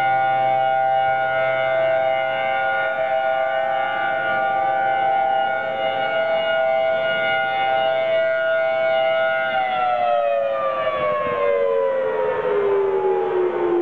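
Tsunami warning siren holding a steady, chord-like tone, then winding down, its pitch falling steadily from about ten seconds in.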